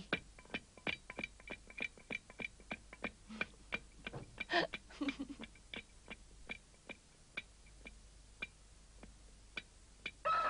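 Wooden peg rattling and knocking in a henhouse door latch, a run of sharp clicks that comes fast at first, then slows and thins out, with one louder knock about four and a half seconds in. At the very end a rooster starts to crow.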